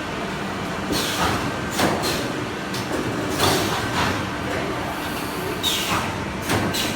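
Wire-mesh welding machine of a 3D sandwich-panel line running, with a steady machine hum. A sharp clank or hiss of a welding stroke comes about every second, seven or so in all.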